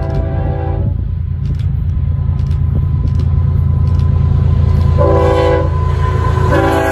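An approaching Canadian Pacific freight train: the lead diesel locomotive's engines make a steady low rumble that slowly grows louder. Its multi-tone air horn ends a blast just under a second in, then sounds a short blast about five seconds in and a longer one starting near the end.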